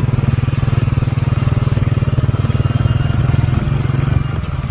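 Vehicle engine running steadily while travelling over a rough rocky road, easing off briefly near the end.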